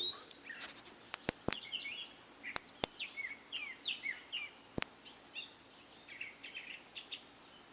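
Small birds chirping, many short downward-sliding chirps, with six sharp clicks in the first five seconds that are louder than the birds.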